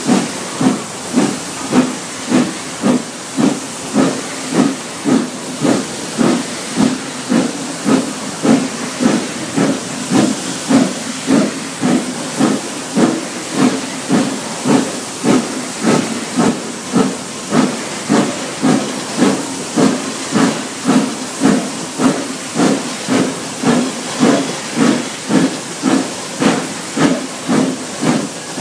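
Steam locomotive No. 85 Merlin, a three-cylinder compound 4-4-0, working along at an even pace: a steady rhythm of exhaust beats, about three every two seconds, over a continuous hiss of escaping steam.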